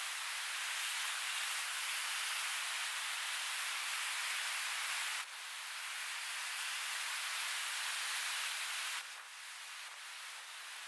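Steady rush of river water, an even hiss without distinct events. It drops abruptly in level about five seconds in and again about nine seconds in.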